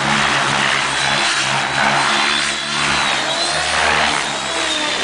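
Radio-controlled helicopter flying aerobatics: its motor and rotor blades give a steady hum with a thin high whine that wavers up and down in pitch as it manoeuvres.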